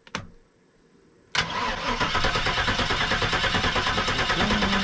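Motorhome's carbureted gasoline engine being cranked over by the starter in a steady rhythmic chug that begins suddenly about a second and a half in, after a short click. It is cranked without firing to let the mechanical fuel pump refill a carburetor that has dried out from sitting.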